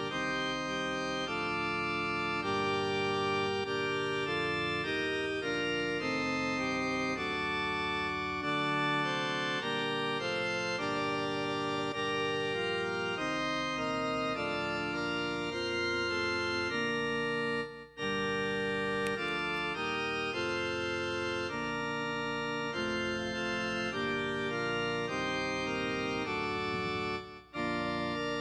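Organ playing sustained chords, breaking off briefly twice between phrases.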